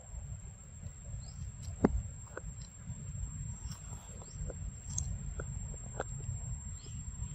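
Small clicks and snaps of leaves and twigs as a young monkey forages in the undergrowth, the sharpest about two seconds in. Under them run a steady low rumble and a constant high-pitched tone.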